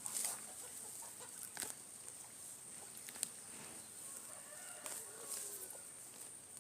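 Chickens clucking, over a steady high-pitched hiss, with a few sharp clicks.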